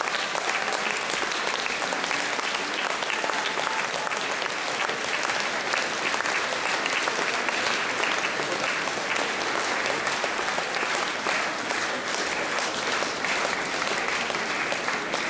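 Audience applauding: a dense, steady clapping that keeps up without a break.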